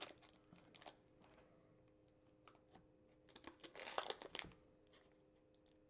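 Foil trading-card pack wrapper crinkling as it is handled and pulled open, faint at first with a denser run of crackling about three to four and a half seconds in.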